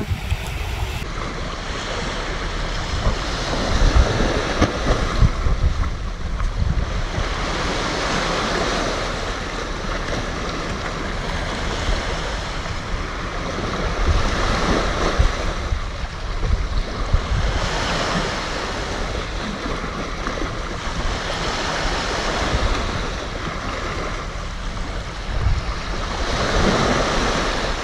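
Sea waves breaking on the beach, the wash swelling and easing every few seconds, with wind buffeting the microphone.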